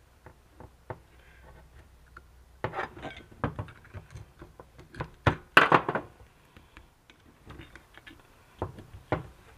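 Flat-blade screwdriver scraping and clicking against the rusty metal seal bore of a Honda dewatering pump housing while prying out the old mechanical seal's rubber ring. Short scattered scrapes and knocks, in bunches about three, five and a half, and nine seconds in.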